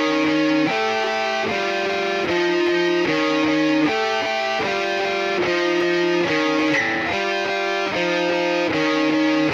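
Instrumental guitar music: plucked notes with the chord changing in a steady rhythm about every three quarters of a second.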